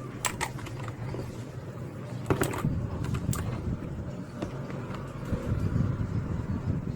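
A few sharp plastic clicks and knocks from a mechanical keyboard being handled, over a steady low background rumble.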